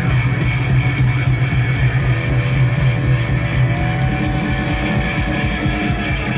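Live rock band playing loud through a PA, with electric guitars, bass and drums, heard from within the crowd. A held low bass note drops out about two seconds in, and a thin gliding high note runs through the second half.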